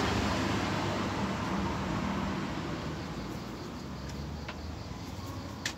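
Electronic sound effect from the DX Valvarusher toy's speaker: a steady, noisy whirr that slowly fades out, with a sharp click near the end.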